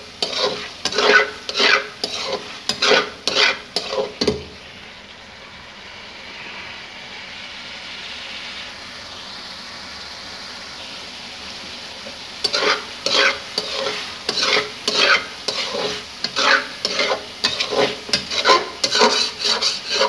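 A metal spoon scraping and stirring chicken karahi in a metal karahi at about two strokes a second, over the sizzle of the gravy cooking down on high heat. The stirring stops for several seconds in the middle, leaving only the steady sizzle, and starts again near the end.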